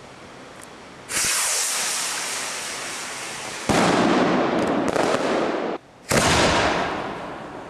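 Homemade aerial fireworks bursting: three sudden loud bangs, about a second in, near four seconds and just after six, each trailing off in a long fading rush of noise.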